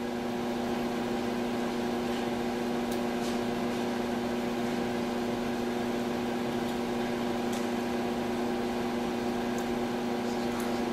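Room tone: a steady hum with a faint hiss, and a few faint ticks here and there.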